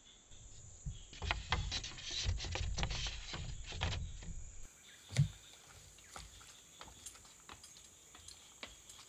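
A flurry of irregular knocks and rustles for about four seconds, then a single heavier knock about five seconds in, followed by faint scattered ticking.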